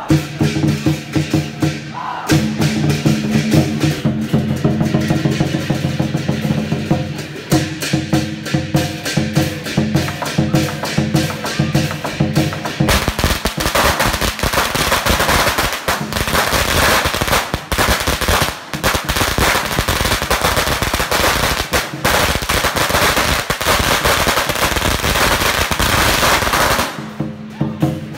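Lion-dance drums and cymbals playing, then about 13 seconds in a long string of firecrackers starts going off in a rapid run of sharp pops that drowns the music for about 14 seconds. The pops stop suddenly near the end and the drums and cymbals come back.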